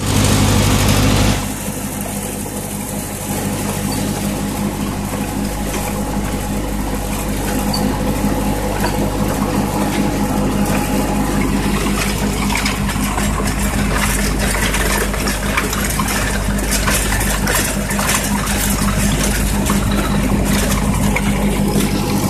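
1952 Ford tractor's four-cylinder engine running steadily at low speed while driving, with a louder rush of noise in the first second and a half. From about eight seconds in, gravel crackles and crunches over the engine.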